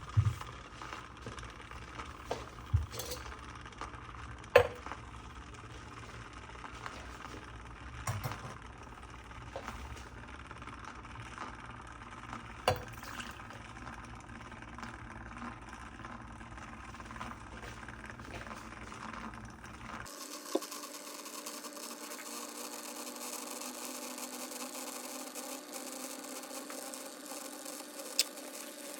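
Electric milk frother running with a steady whirr as it heats and froths milk, with a few sharp clicks and knocks in the first dozen seconds. About two-thirds of the way through the hum changes abruptly to a steadier, higher whirr.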